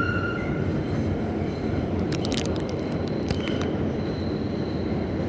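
R188 subway car on the 7 line running underground: a steady rumble of wheels on rail. A high wheel squeal fades out in the first half second, a quick cluster of sharp clicks comes about two seconds in, and a thin high whine begins near the end.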